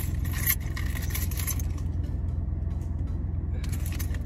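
Car engine idling steadily, a low rumble heard inside the cabin, with light rustling and small clinks of items being handled in the first second and a half and again near the end.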